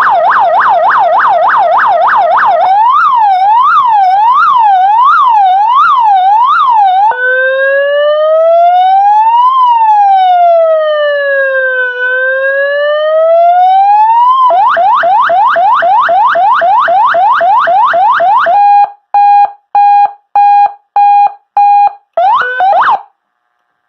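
200-watt electronic police siren, very loud, stepping through its tones: a fast yelp, then a slower warble, then a slow wail rising and falling, then the yelp again. About 18 seconds in it switches to a steady tone pulsed on and off about twice a second, and it cuts off shortly before the end.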